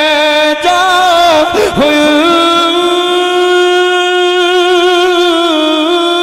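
A man's voice singing a long, drawn-out melodic phrase in a devotional chanting style, holding sustained notes with a slight waver and stepping up to a higher note about two seconds in.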